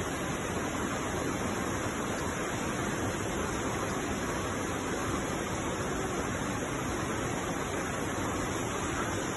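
Steady rushing of flowing river water, an even wash of noise that does not change.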